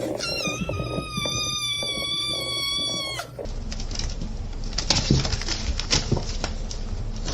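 A long, high animal cry held at a steady pitch for about three seconds, then cut off abruptly. It is followed by scattered clicks and knocks.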